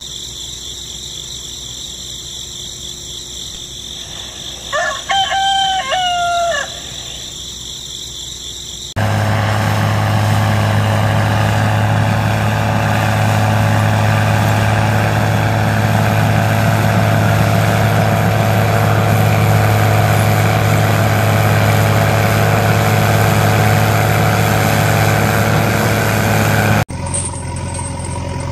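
A rooster crows once about five seconds in, over a steady high-pitched hum. About nine seconds in, a loud, steady truck-engine idling sound effect starts abruptly and runs until it cuts off suddenly near the end.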